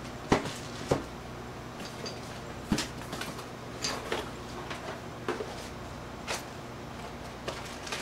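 Cardboard motherboard box and packaging being handled and opened, with sharp clicks and knocks: two in the first second, another at about three seconds, and softer taps after. A steady low hum runs underneath.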